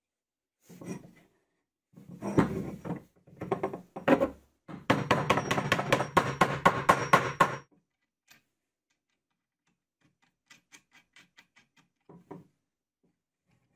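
Plywood jig parts and bolt hardware (washers, nuts, wing nuts) handled and fitted together: knocks and clicks of wood and metal. In the middle comes a louder stretch of rapid, evenly spaced clicks and rattling. Near the end there are faint quick ticks as a wing nut is turned on its bolt, then a last knock.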